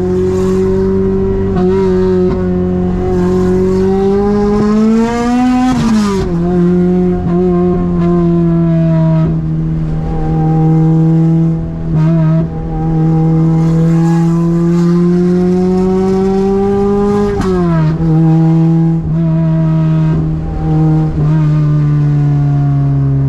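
Toyota 2ZZ-GE four-cylinder engine pulling under steady load. Its pitch climbs slowly, then drops sharply at an upshift about six seconds in, and again at a second upshift about seventeen seconds in.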